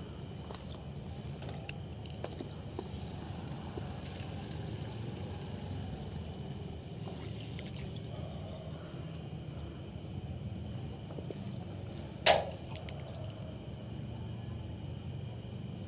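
Steady high-pitched chorus of night insects over a low hum, broken once about twelve seconds in by a single sharp, brief noise, the loudest sound here.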